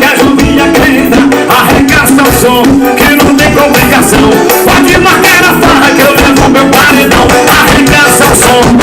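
Loud music with singing and a steady beat played through a car audio system's trunk-mounted speakers.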